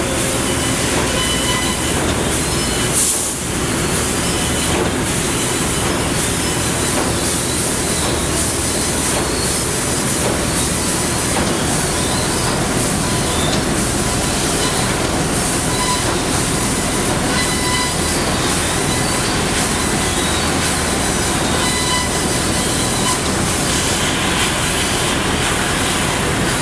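Salvagnini L3-30 3000-watt CNC fiber laser cutter running: a steady loud hiss and mechanical noise with faint high steady whines, and a brief louder burst about three seconds in.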